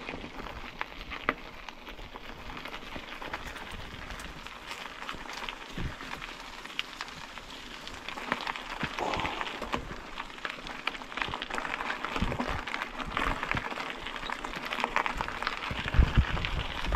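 Mountain-bike tyres rolling over an unpaved road: a steady crackling crunch of grit under the tyres that grows louder as the ride goes on, with low thumps near the end.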